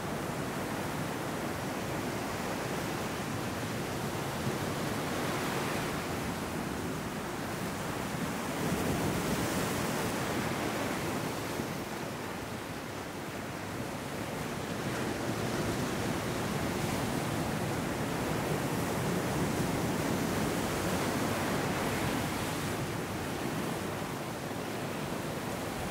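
Ocean surf breaking around rocks and washing up over boulders and sand: a continuous rush of water that swells louder as waves come in, notably about a third of the way in and again through the middle.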